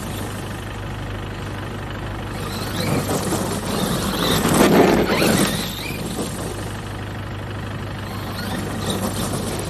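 Monster truck's engine running at idle with a steady low hum, swelling louder for about a second near the middle.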